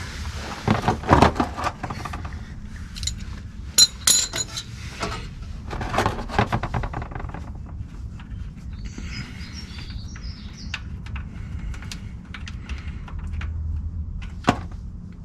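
Metal tools and parts clinking and clicking in irregular clusters while work gets under way on a car oil change, with one sharp click near the end.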